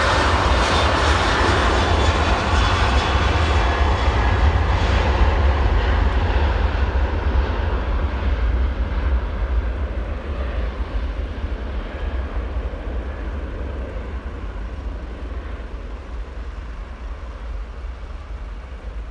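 SAS Boeing 737's twin jet engines at full takeoff thrust, a loud low rumble with jet roar as the airliner rolls down the runway and lifts off. The sound fades steadily over the last dozen seconds as the plane climbs away.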